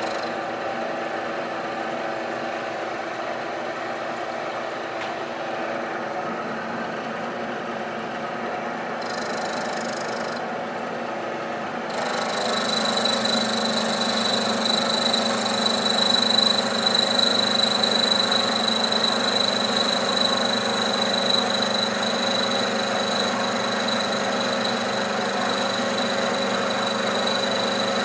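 Bridgeport milling machine running, its end mill cutting across the top of a locomotive crosshead blank. About twelve seconds in the sound gets louder and a steady high whine joins it.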